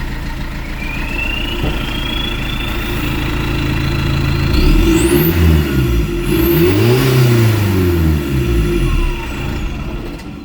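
Car engine running and revved up and back down twice, a few seconds in.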